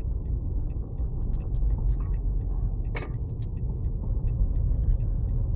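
Inside a moving car: the steady low rumble of engine and tyres on the road, with faint small ticks and rattles scattered through it and one sharper click about three seconds in.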